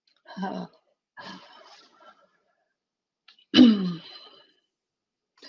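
Brief wordless vocal sounds from a person: a short voiced sound, a faint breath, then a louder sound falling in pitch about three and a half seconds in.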